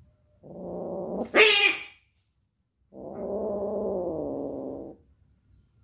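Domestic cat growling low, breaking into a short, loud yowl about a second and a half in, then growling again for about two seconds, the pitch wavering. It is a warning growl at another cat facing it.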